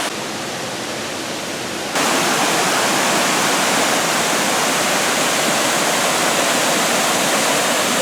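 Steady rushing of a waterfall. It gets louder and brighter about two seconds in.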